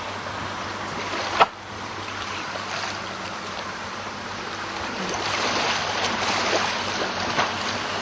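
Water splashing and lapping steadily, louder in the second half, with one sharp knock about a second and a half in.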